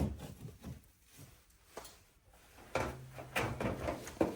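A sharp knock, then scattered clicks and rattles of plastic and metal parts being handled, growing busier about three seconds in over a low hum.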